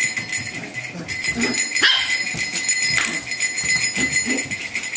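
Two-month-old Shetland sheepdog puppy barking in play, a few short separate yaps.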